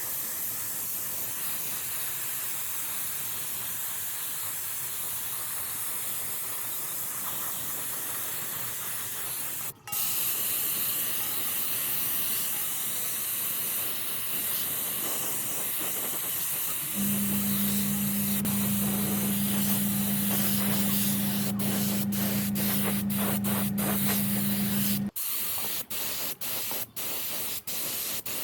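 A steady hissing rush, like a spray or air jet. A low steady hum joins it for several seconds past the middle and cuts off abruptly, after which the sound comes in short chopped pieces.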